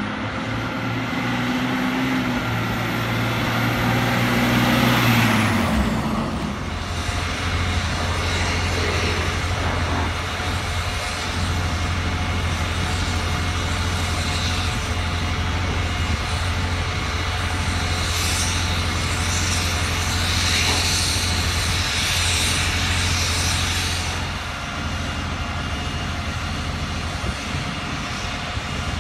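Cummins 5.9-litre diesel engine of a 1999 Ford F800 bucket truck running as the truck drives up. About six seconds in the sound changes to the same diesel running steadily with a low hum, the truck parked while its Versalift aerial boom is raised.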